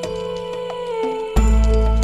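Background music with held notes; a heavy bass comes in about two-thirds of the way through and the music gets louder.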